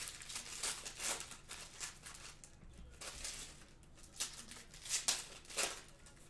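Foil trading-card pack wrappers crinkling and rustling as packs are opened, with cards sliding out and being flicked through by hand; irregular swishes, a few louder ones in the second half.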